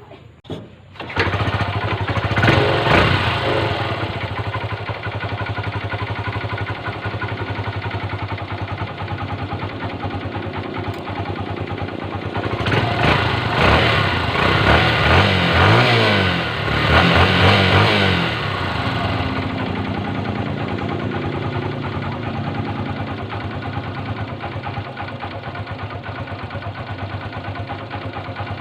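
Honda CB125 motorcycle engine starting about a second in and idling, revved several times in the middle, then settling back to a steady idle. It is running on its stock carburetor jets, refitted after the repair kit's jets proved too small.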